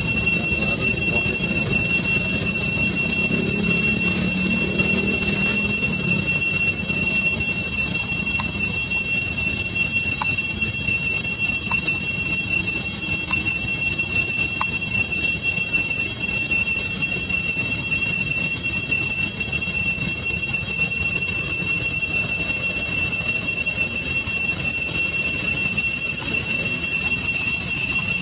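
Cicadas droning in an unbroken, loud, high-pitched chorus: a steady shrill whine with a second, higher tone above it.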